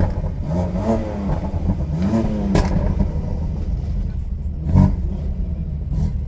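Performance car engine running with a few revs rising and falling, and sharp exhaust pops, a crack about two and a half seconds in and a louder bang near five seconds.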